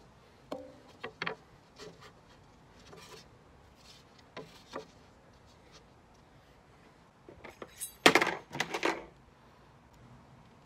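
Wooden crate parts knocking and clacking as a slatted panel is handled and fitted onto the crate. The sharp knocks are scattered, and a louder burst of clattering comes about eight seconds in.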